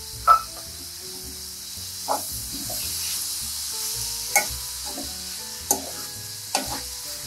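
Chopped onion, green beans and tomato sizzling in a kadhai while a metal spatula stirs them, its edge clinking against the pan five times.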